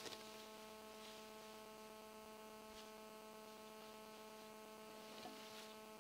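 Near silence: a faint, steady electronic hum from the recording, with a few faint rustles of grass.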